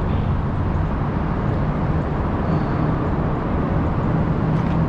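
Truck engine idling steadily with a low hum.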